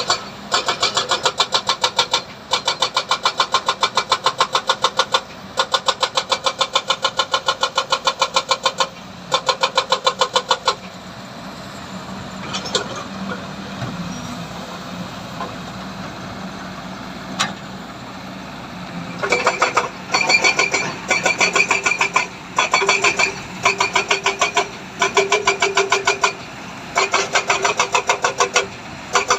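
Heavy machinery working: a rapid, even mechanical clatter in bursts of a few seconds with short breaks, giving way for several seconds to a steadier engine running, then returning.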